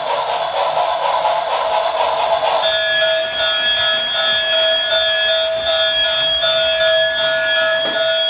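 Battery-powered Thomas the Tank Engine toy train driving itself on a wooden floor: its motor and gears whir, and about three seconds in its built-in speaker starts a steady electronic tone that holds on.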